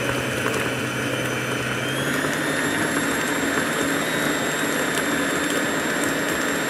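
Electric stand mixer running steadily, beating butter and sugar into a thick batter as eggs go in. Its motor hum steps up in pitch about two seconds in, then holds steady.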